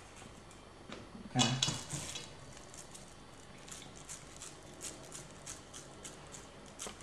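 Hands rolling a wet minced pork and grated potato mixture into meatballs, making soft squelchy pats and slaps. A brief louder knock comes about a second and a half in, then a run of light pats about twice a second.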